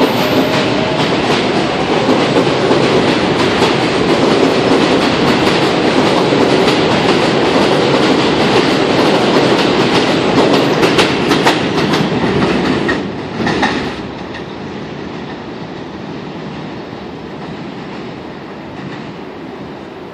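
R143 subway train running out of an elevated station, its wheels clacking over the rail joints. The sound drops off sharply about two-thirds of the way in as the last car clears, leaving a fainter steady rumble as it moves away.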